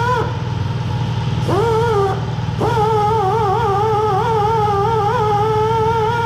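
Handheld power tool working on a steel car door panel: a high whine whose pitch wavers as the tool is loaded. It spins up about a second and a half in, stops briefly, then starts again sharply and runs on, over a steady low hum.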